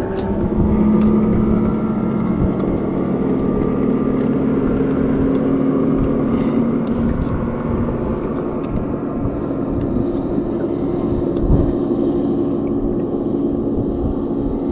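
A motor running steadily, a continuous low hum with a few steady tones and no change in speed.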